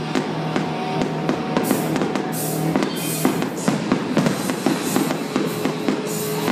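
Aerial fireworks shells bursting with repeated bangs and crackle, over loud music with drums.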